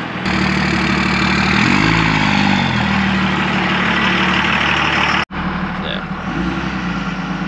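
A 1999 Dodge Ram's 5.9-litre Cummins turbo-diesel running under way on a test drive with a new performance tuner. About two seconds in the engine pitch rises and then drops back as the truck pulls. About five seconds in the sound cuts off suddenly and comes back at a steadier, somewhat lower level.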